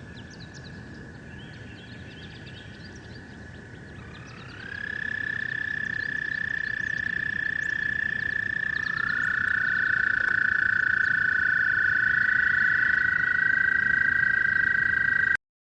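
Toads trilling: long, steady trills, several overlapping at slightly different pitches. A louder trill starts with a short rise in pitch about four seconds in, and another joins about nine seconds in. The sound cuts off abruptly just before the end.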